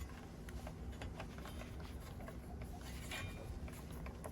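A screwdriver unscrewing a screw: faint, irregular small clicks and scrapes.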